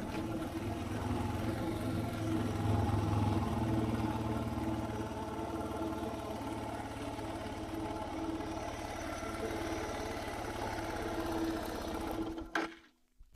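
Suzuki DR650's single-cylinder four-stroke engine running steadily while riding, slightly louder early on, then the sound cuts off abruptly near the end.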